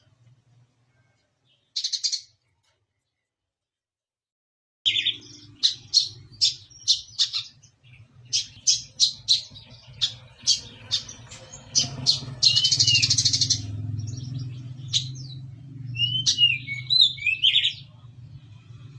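Brown-throated sunbird (kolibri kelapa) singing its sparrow-like 'gerejaan' chirp phrases: a short chirp, a pause, then about five seconds in a quick run of sharp chirps, a buzzy trill and a few short slurred notes. A low steady hum runs beneath the song.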